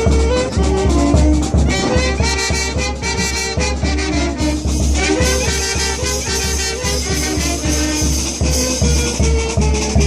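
Brass band playing lively Latin American festive music, brass carrying the melody over a steady beat.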